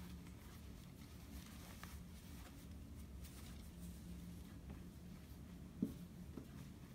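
Faint rustling of cotton clothing being handled and unfolded, over a steady low hum, with a single sharp tap near the end and a lighter one just after.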